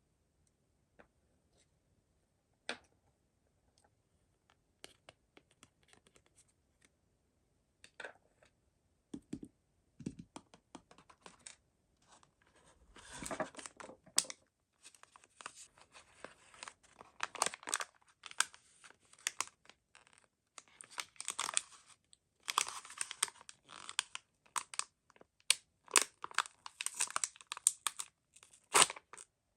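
Mystery-toy packaging being handled and torn open. A few scattered clicks and taps come first, then from about ten seconds in a dense run of tearing and crinkling.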